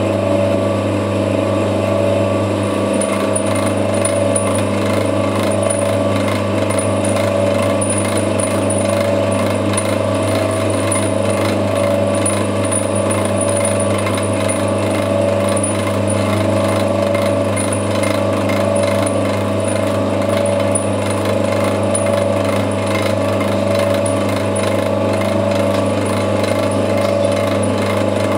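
CNC lathe turning a metal part: a steady machine hum from the running spindle and drives, with the cutting tool on the work. An even ticking joins in about two seconds in and carries on.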